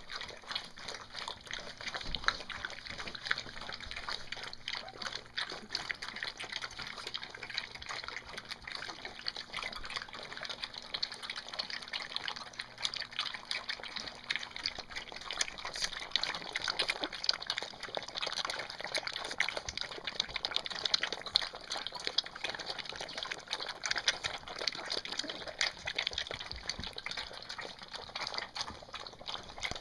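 A litter of puppies eating together from a food bowl: a dense, irregular run of small wet clicks and smacks as they lap and chew.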